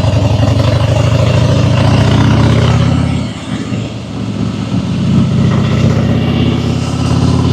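Harley-Davidson Fat Boy's V-twin engine running while riding, a loud pulsing exhaust note. It eases off briefly about three seconds in, then picks up again.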